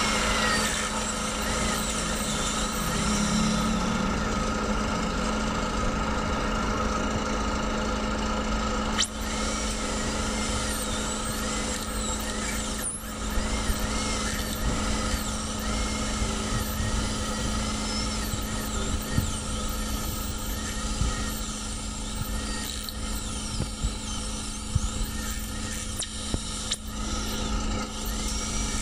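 Dental drill handpiece running continuously as it cuts at an impacted third molar, a steady whine whose pitch wavers as it bears on the tooth, with a few brief clicks.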